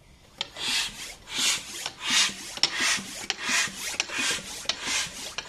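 Bicycle air pump being worked in quick, regular strokes, starting about half a second in. Each stroke is a hiss of air with a click, about one and a half strokes a second, as it pushes air through a hose into a giant latex balloon.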